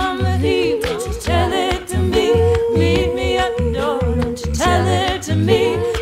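A cappella gospel singing over a steady low beat, with one long held note in the middle.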